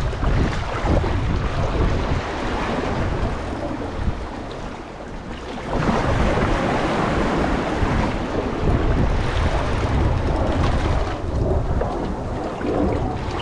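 Wind buffeting the microphone over seawater washing and surging among concrete breakwater blocks, with a louder surge of water about six seconds in.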